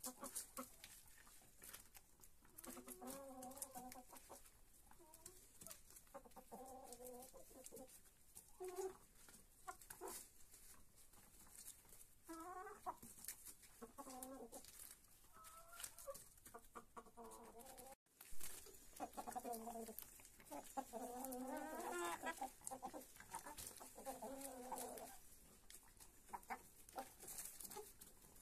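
Domestic hens clucking in short, repeated calls while pecking at and tearing lettuce leaves, with quick pecking clicks throughout.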